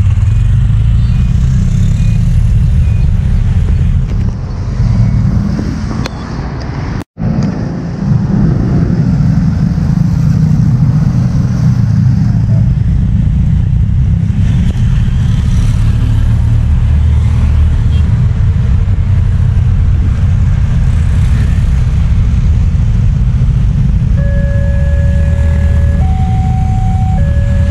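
Steady low rumble of motorcycles and road traffic at a railway level crossing. About 24 seconds in, the crossing's electronic warning siren starts: an alternating two-note tone that switches pitch every second or two, the signal that a train is approaching.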